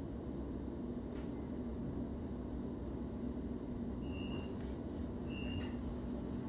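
Interior of an electric suburban train carriage with a steady low hum as the train comes to a stop at a station platform. From about four seconds in, a short high electronic beep repeats roughly every second and a quarter.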